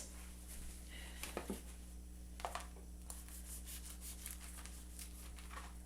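Faint crinkling and light clicks of plastic bread packaging being handled, over a steady low hum.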